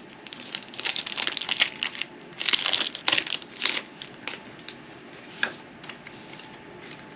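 Crinkling and rustling as a Pokémon booster pack's foil wrapper and cards are handled, in a run of bursts for the first few seconds, then a few light clicks.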